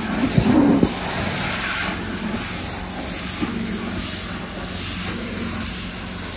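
Carpet extraction wand on a stair tread: the steady hiss of hot-water spray and vacuum suction, surging and easing about once a second with each stroke over a low machine hum. A few light knocks about half a second in.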